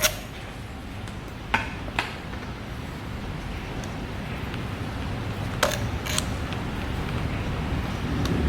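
Sharp metallic clicks of a hand tool on a handlebar bolt as it is fitted and tightened: about five separate taps, one near the start, two close together around two seconds in and two more past the middle, over a low background hum.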